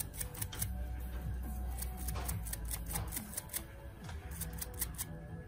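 Rapid, irregular clicking and tapping of small hand tools working on a tiny power-button part, over quiet background music.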